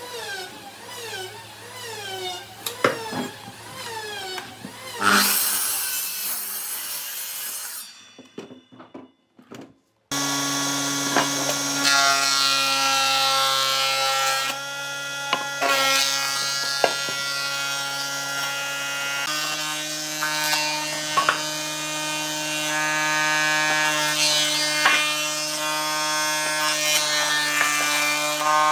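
Woodworking power tools cutting and shaping wood, with tones that shift in pitch as the work changes and occasional sharp knocks. A brief pause about a third of the way through, then a machine runs steadily.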